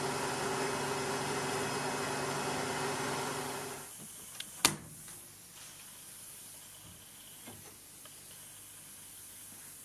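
Sandblast cabinet in use: a steady hiss of blasting air and grit with a hum under it, which stops about four seconds in. A sharp click follows as the cabinet's side-door latch is flipped open, then a few light knocks.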